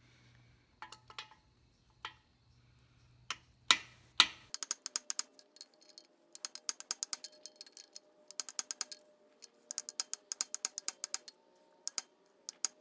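Rapid metallic tapping on the end of a long socket extension, driving an old camshaft bearing out of an Oldsmobile 350 V8 block. A few separate knocks come first, then quick bursts of about eight to ten light taps a second with short pauses between.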